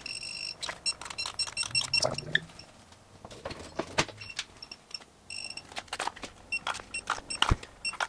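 Electronic torque wrench beeping as flex plate bolts are torqued: runs of quick short pips as the torque builds, and a longer steady beep at the start and again about five seconds in as a bolt reaches its set torque, among sharp ratchet and tool clicks.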